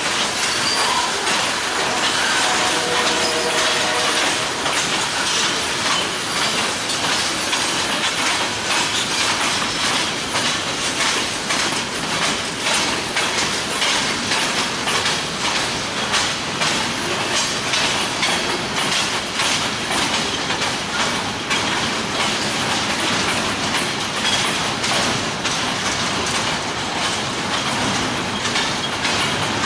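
A train passing at speed, its wheels clicking in a steady rhythm over the rail joints amid continuous rolling rail noise.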